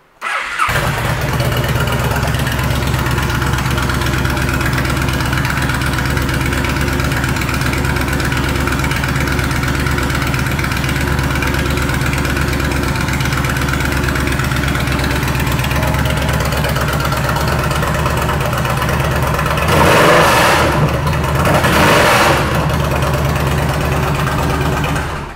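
Yamaha V Star 1300 Tourer's V-twin engine, fitted with a custom exhaust, starting and catching at once, then idling steadily. Near the end it is revved twice in quick succession, then switched off.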